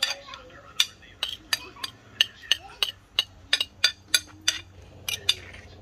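A spoon clinking again and again against a metal cooking pot and plate while brown stewed goat liver is dished out. The sharp, ringing clinks come irregularly, about three a second, and stop shortly before the end.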